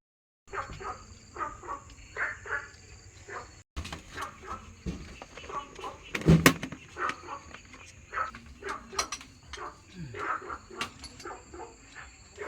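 A flock of ducks calling, many short overlapping calls in quick succession, with one sharp knock about six seconds in.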